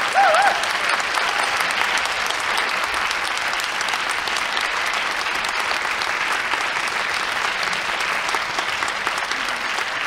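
Theatre audience applauding steadily in a dense crackle of handclaps. Just after it starts, a brief wavering high note from someone in the crowd rises above the clapping.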